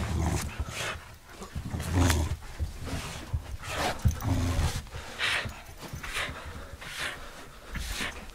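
Schipperke dog panting in quick breaths, about two a second, with a few short low rumbles mixed in.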